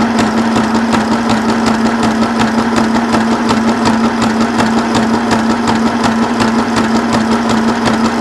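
Janome Sew Mini sewing machine running continuously, zigzag-stitching through cardstock: a steady motor hum with a fast, even clicking of the needle mechanism.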